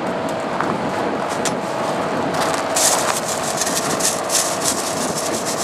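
Train's diesel engine idling steadily with a constant hum. About two and a half seconds in, a run of quick hissing scrapes starts up over it as the coupling is worked.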